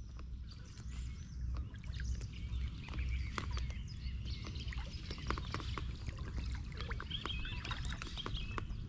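Outdoor water ambience: a steady low rumble with scattered clicks and small knocks, and birds chirping in short calls near the end.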